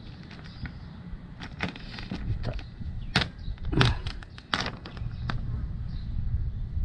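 Clear transfer film of a vinyl sticker crackling and clicking against a plastic kayak hull as it is pressed and smoothed on by hand. A run of sharp clicks and crackles fills the middle few seconds, over a steady low rumble.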